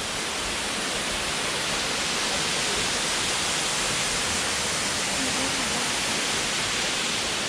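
Small waterfall, water falling with a steady, even rush.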